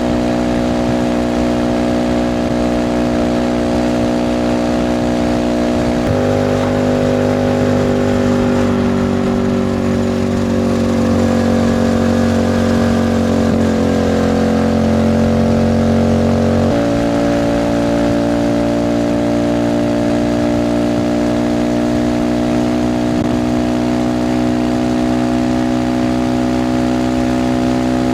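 Racer Alpha moped engine running under way; its note changes abruptly about six seconds in and again about seventeen seconds in, dipping and rising slowly in pitch in between as the throttle changes.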